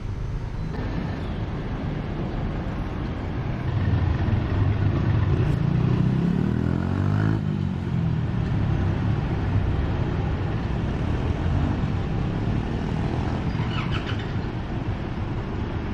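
Motor vehicle engine running on the road, rising in pitch as it speeds up about four to seven seconds in, then running steadily.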